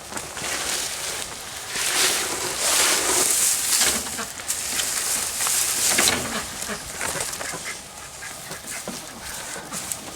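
Domestic ducks and other poultry calling, mixed with rustling and crunching noises that are loudest a couple of seconds in and again around the middle.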